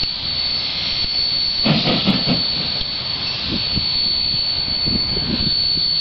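Jb-class steam locomotive hauling a freight train, heard from a distance: a steady rushing hiss of escaping steam, louder for a moment about two seconds in, with faint exhaust beats underneath.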